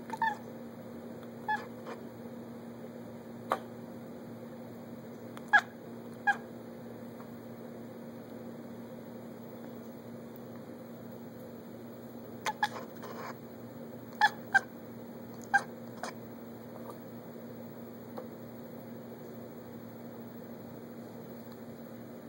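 Black-and-white cat at a window screen giving short, clipped meows toward squirrels it cannot reach. About a dozen calls, some in quick pairs, spread over the first two-thirds, with a steady low hum underneath.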